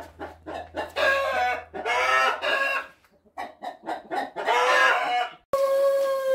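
Chickens clucking and calling, with a rooster crowing. About five and a half seconds in the sound cuts off abruptly and a long, steady crow note begins.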